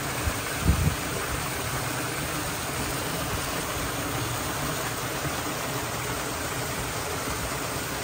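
Water of a rock-garden fountain running and splashing down the stones, a steady rushing noise, with a couple of low thumps about a second in.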